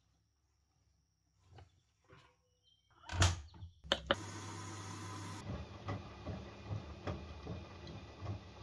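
Front-loading washing machine: its door shut with a thud about three seconds in, a click as the Start button is pressed, then the machine starting its cycle with a steady rush of water filling and sloshing in the drum over a low hum.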